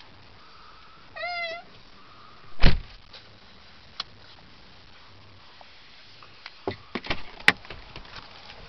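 Low steady running noise inside a slowly moving car. A short wavering squeal comes about a second in, a single loud thump near three seconds, and a cluster of sharp clicks and knocks near the end as the car stops.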